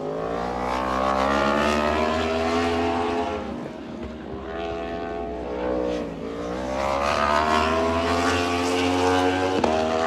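Racing motorcycle engines at high revs on the track, the engine note climbing, falling away twice and climbing again as the bikes accelerate.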